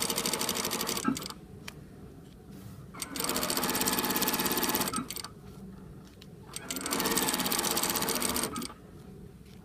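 Industrial single-needle sewing machine stitching a seam in three short runs of about one to two seconds each, with a fast, even needle rhythm. It stops briefly between runs while pins are pulled out of the seam.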